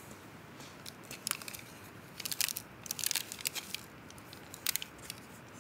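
Crinkling, crackling handling noises in short irregular bursts, starting about a second in, over a faint steady hiss.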